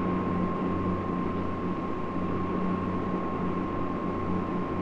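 Steady hiss with a low, slowly pulsing hum and a thin, constant high tone: the background noise of an old recording.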